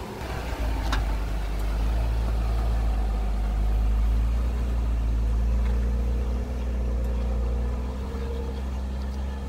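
Jeep engine running steadily at low revs as it crawls up slickrock, a low even hum, with a single sharp click about a second in.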